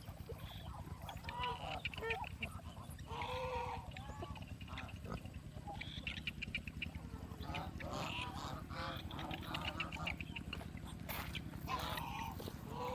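Domestic geese honking again and again, mixed with ducks calling, from a flock of farmyard poultry.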